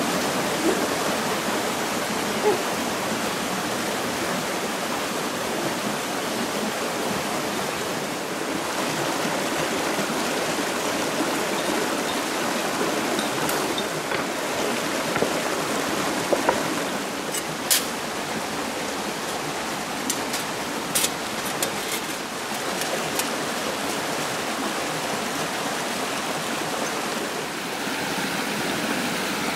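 A shallow forest stream running over rocks: a steady rush of water, with a few brief sharp clicks about two-thirds of the way through.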